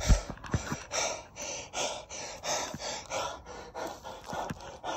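A man panting hard after a run, quick open-mouthed breaths in and out at about three a second, out of breath from exertion. A couple of low bumps right at the start.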